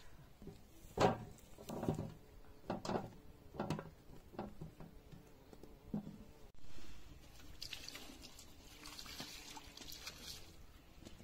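Vegetables set down one by one into a metal basin, about six dull knocks with a short ring. Then, a few seconds later, water poured from a clay jug splashing over vegetables in the basin as they are washed.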